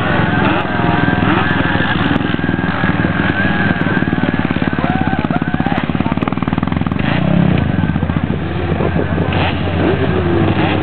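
Several quad ATV engines running and revving, their pitch rising and falling, with a fast, strong engine pulse through the middle.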